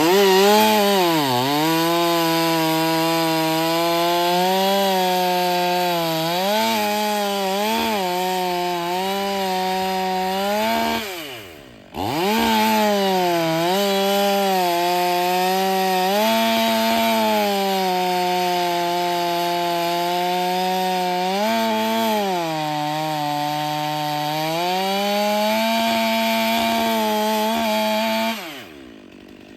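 Stihl MS 500i fuel-injected two-stroke chainsaw running at full throttle through firewood, its pitch sagging and recovering as the chain bites. It makes two long cuts: it drops off briefly about eleven seconds in, then runs again until it falls back near the end.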